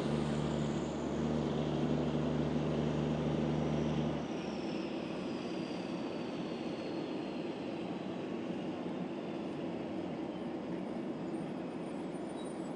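Airbus A320-family airliner's jet engines running as it taxis, a steady rushing noise with a high whine that slowly falls in pitch after about four seconds. A low steady hum cuts off about four seconds in.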